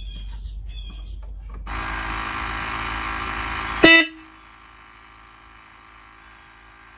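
Air horn wired into a Maserati Biturbo's horn circuit sounding one steady blast of about two seconds, starting a little under two seconds in and ending in a sharp, loud crack. It is a test blast showing that the rewired horn circuit now works.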